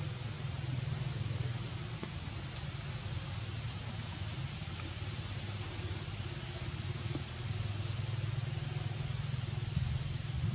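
Steady outdoor background noise: a low rumble under an even hiss, with a thin, high, steady whine.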